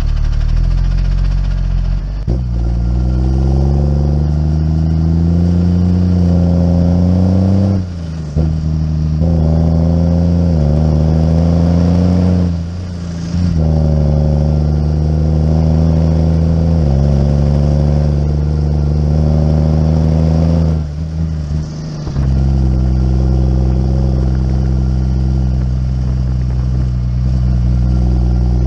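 Muck cart's engine running under load as it drives along. Its pitch climbs as it picks up speed, falls back with short dips in loudness about 8, 13 and 21 seconds in, and climbs again. Near the end it settles into a steady run.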